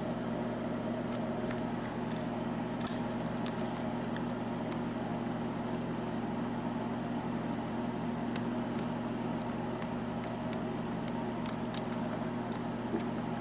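Faint, irregular metallic clicks and ticks of a lock pick working the pins of a Sargent six-pin tumbler lock under tension, over a steady electrical hum.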